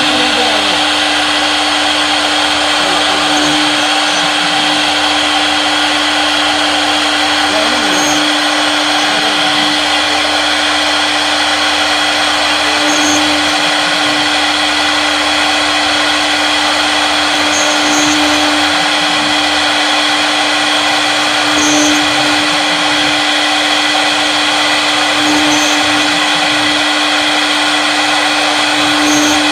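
CNC wood router running steadily while cutting a wooden decoration piece: a constant spindle whine, with a lower hum underneath that changes every few seconds.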